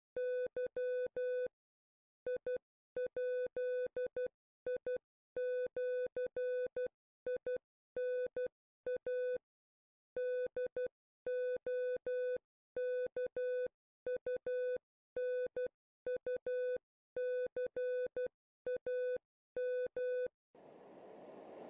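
Electronic beep tone, mid-pitched, keyed on and off in groups of short and long beeps like Morse code. Near the end the beeping stops and a rushing noise swells up.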